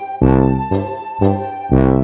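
Background music with a steady beat of bass-heavy pitched notes, about two a second.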